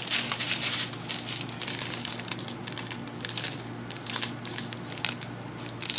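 Thin plastic zip-top bags of diamond-painting drills crinkling and crackling as they are handled, with irregular crackles throughout that are louder in the first second.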